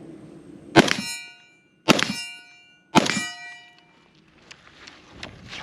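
Three rifle shots from a PSA AK-105 in 5.45×39, about a second apart, each followed by a steel target ringing as it is hit.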